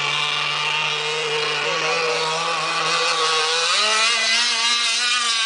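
Gas-powered Aeromarine 44 Avenger RC boat's Zenoah two-stroke engine running at speed across the water, a steady buzzing note that climbs in pitch a little past halfway as the engine speeds up.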